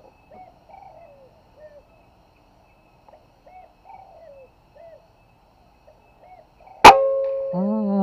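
Faint short chirps of small birds, then about seven seconds in a single sharp shot from a locally built FX-style air rifle firing a 14-grain BST slug, followed by a brief steady ringing tone.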